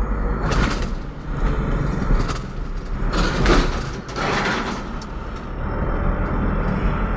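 Road noise from a moving vehicle: a steady low rumble, with the rushing sound of oncoming vehicles passing close by several times, the loudest about three and a half seconds in.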